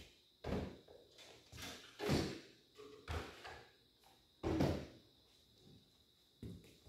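Tools being set down and shifted on a steel work table: a series of clunks and knocks, about five louder ones in the first five seconds and a couple of lighter ones near the end.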